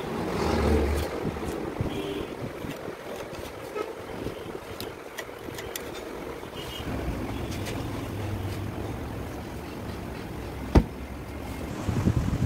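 A knife being sawn through the thick rubber of a large tire while the cut strip is pulled apart with hooked iron bars: scraping and rubbing over a low rumble, with one sharp knock about eleven seconds in.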